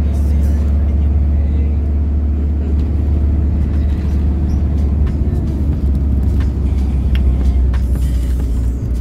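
Steady low rumble of a road vehicle on the move, heard from inside, with music playing along with it.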